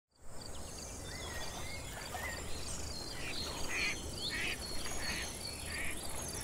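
Outdoor nature soundscape: a steady high insect trill with scattered bird calls, and a run of five short harsh calls about half a second apart in the second half, fading out at the end.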